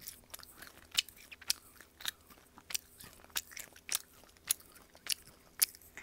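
Close-up chewing of chewy gaeseong juak (Korean fried honey-glazed rice-flour cake), with wet mouth clicks about twice a second.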